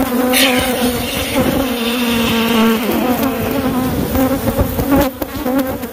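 A swarm of angry Africanized honey bees (killer bees) buzzing close around the microphone: a loud, steady hum whose pitch wavers, from defensive bees stirred up by alarm pheromone. In the first two seconds or so, a can of expanding spray foam hisses as it is injected into the hive's opening in the tank.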